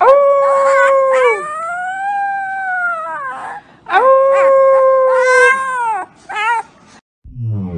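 Husky puppy howling: two long howls, each holding a pitch and then sliding down, with a quieter arching call between them and a short yip near the end. Music starts just before the end.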